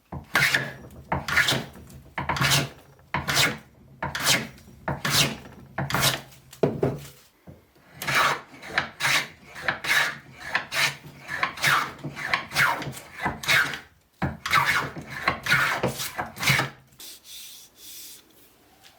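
Hand rasp worked over wood in steady back-and-forth scraping strokes, slower at first and then quicker, with two short pauses; the strokes stop shortly before the end.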